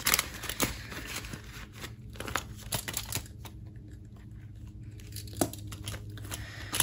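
Paper banknotes being handled and shuffled: irregular crisp rustling and crinkling, with a lull in the middle.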